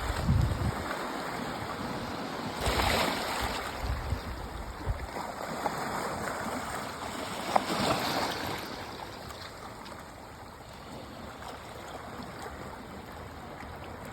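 Small sea waves washing on a shore, swelling twice, with wind buffeting the microphone in the first few seconds.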